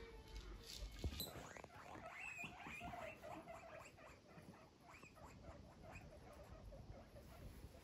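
Guinea pigs giving a quick run of short squeaks, several a second, starting about a second in and tailing off after about six seconds.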